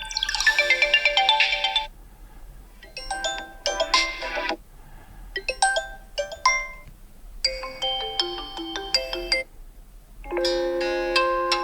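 Vivo Y76 5G phone ringtones playing: about five short melodic phrases of electronic chime-like tones, each one to two seconds long, with brief pauses between them.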